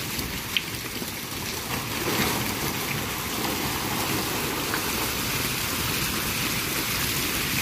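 A dip-net load of freshly caught sardines being emptied into a boat's fish hold: water draining and many small fish slapping and wriggling against each other, a steady wet noise that grows a little louder about two seconds in.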